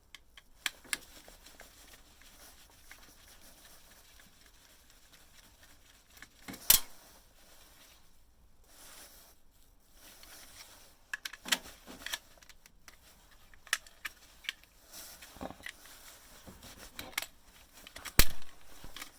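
Scattered clicks and knocks of hand tools and plastic and metal parts being handled while a bread maker is taken apart. There are two louder knocks, about a third of the way in and just before the end.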